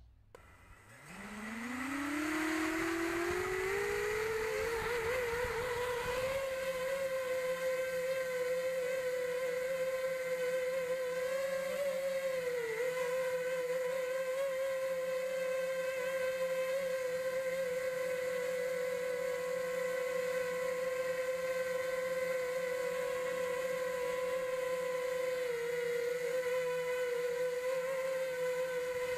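FPV racing quadcopter's four 2205 2300KV brushless motors and propellers spinning up: a whine that rises steeply in pitch from about a second in, then holds as a steady high propeller whine as the drone climbs and hovers, dipping briefly in pitch about twelve seconds in.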